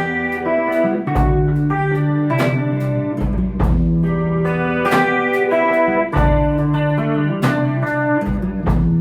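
Band playing an instrumental passage led by guitar, with picked notes repeating in an even rhythm over sustained low notes and no vocals.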